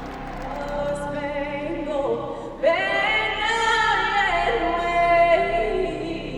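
A solo singer holds long notes with vibrato, getting louder about two and a half seconds in.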